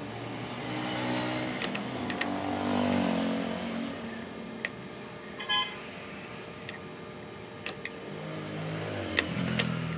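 A motor vehicle engine passes by, swelling over the first few seconds and fading, and another passes near the end. Scattered sharp metal clicks and taps come from steel scale parts and pliers being handled, and there is a short high chirp about halfway through.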